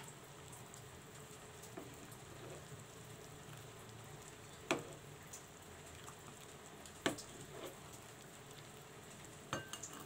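Chicken pieces simmering in spiced broth in a wok, a low steady bubbling hiss. A spatula knocks sharply against the wok a few times, about five and seven seconds in and twice near the end, as the chicken is turned.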